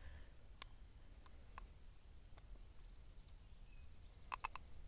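Near silence with a steady low rumble and a few faint, sharp clicks, three of them in quick succession near the end.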